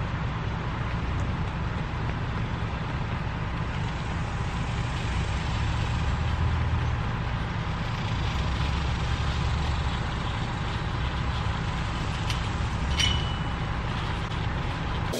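Steady outdoor background noise: a fluctuating low rumble with a hiss above it, and one short high chirp about thirteen seconds in.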